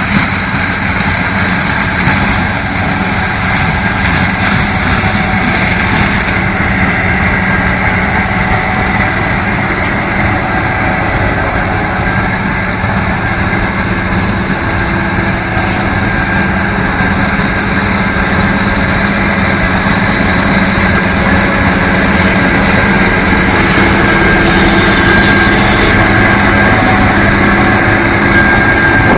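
Combine harvester running steadily while harvesting corn: a loud engine drone with a steady high whine above it.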